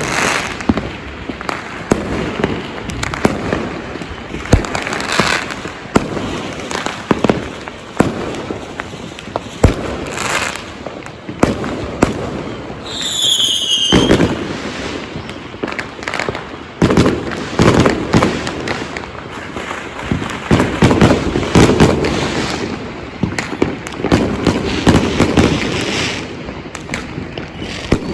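Many fireworks and firecrackers going off at once: a constant crackle with frequent sharp bangs and deeper booms. A whistling firework sounds briefly about 13 seconds in.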